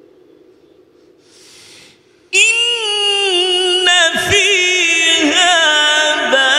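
A man's voice starting melodic Quran recitation (tilawat) about two seconds in, after a short breathy hiss. It is one long, loud held phrase whose pitch bends and wavers in ornamented turns.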